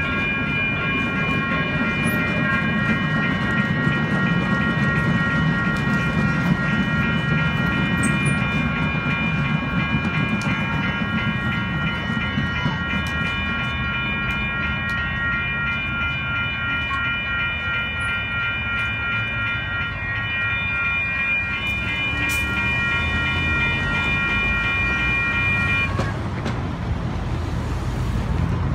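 Several electronic railroad crossing bells (WCH, NEG and General Signal models) ringing together, over the low rumble of a UTDC light rail train passing through the crossing in the first several seconds. The bells cut off near the end as the crossing deactivates.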